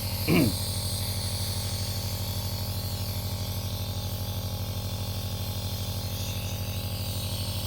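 Yuwell nebulizer's electric compressor running: a steady buzzing hum with a fast, even flutter, over a high hiss.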